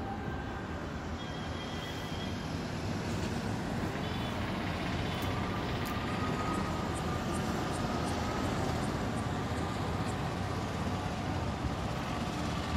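A steady low mechanical rumble with a hum that neither rises nor falls.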